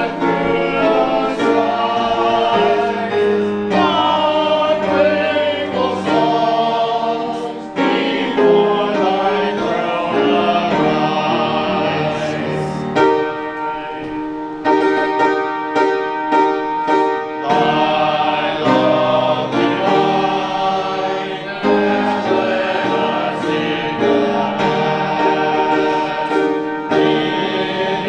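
Church congregation singing a hymn together, with instrumental accompaniment.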